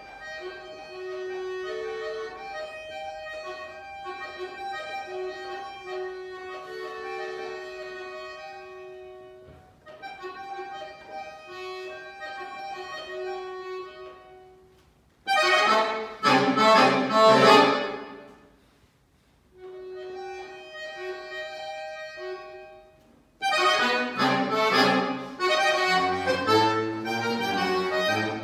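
Solo accordion playing contemporary music: soft held chords for about fifteen seconds, then a sudden loud, dense outburst, a brief silence, quiet sustained notes again, and a loud, busy passage near the end.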